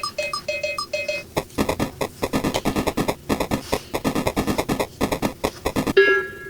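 A quick electronic beeping, about four short beeps a second, stops after about a second. A few seconds of rapid clicking and crackling follow, then a bright tune of falling notes begins near the end.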